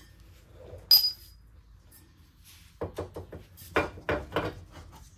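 A sharp metallic clink about a second in, then a quick run of knocks and rattles as an old rear shock absorber is worked loose from its mounts.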